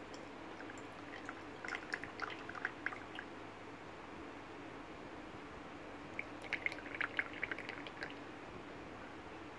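Tea trickling and dripping from the spout of a small 90 ml Bizen clay teapot into a stoneware pitcher, in two spells of splashing drips: one about two seconds in, another about six seconds in.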